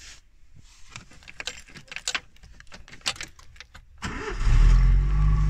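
Keys rattling at the ignition with a run of small clicks, then a car engine cranks and catches about four seconds in, settling straight into a steady low idle.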